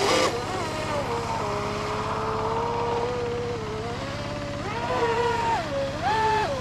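Electric motor of a radio-controlled speedboat whining at speed, its pitch steady at first, then rising and dropping twice near the end as the throttle changes.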